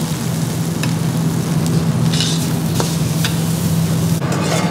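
A metal ladle scraping and stirring paneer curry in a hot frying pan and knocking against a small metal serving bowl as it is filled, with the food sizzling over a steady low hum.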